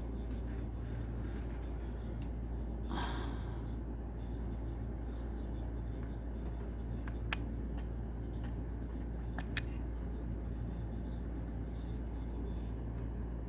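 Steady low background rumble and hum, with a brief rustle about three seconds in and two sharp small clicks later on, from handling parts inside an opened laptop during a memory upgrade.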